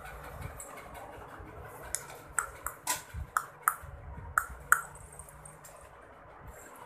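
Irregular sharp clicks and knocks, each with a short ring, about nine in under three seconds starting about two seconds in: a baby knocking and rattling a blue plastic baby walker.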